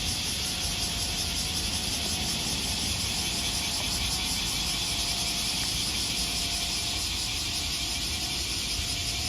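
Steady vehicle noise: a low rumble under a hiss, holding level without rising or falling, with a faint thin tone running through it.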